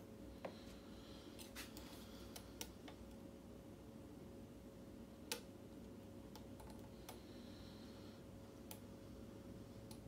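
Faint, scattered small metallic clicks and ticks of a hook pick working the pins of a Kwikset mortise cylinder under tension, the lock sitting in a false set. The loudest click comes about five seconds in.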